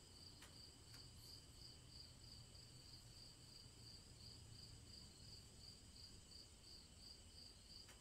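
Crickets chirping faintly in a steady, evenly pulsing high-pitched trill.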